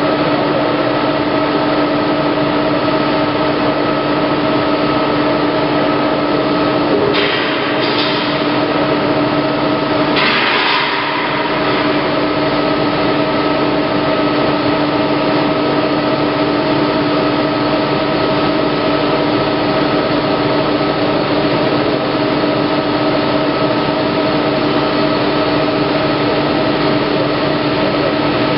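Plate rolling machine running as it rolls a steel sheet into a cylinder: a steady mechanical drone with a hum and whine held at several pitches, broken by two short noisy flare-ups about seven and ten seconds in.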